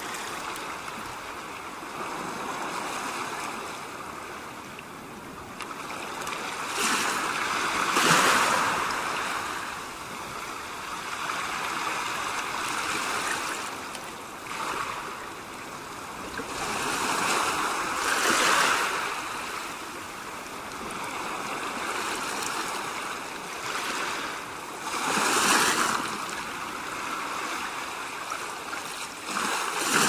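Ocean waves washing in, a steady rush of surf that swells and eases off every several seconds.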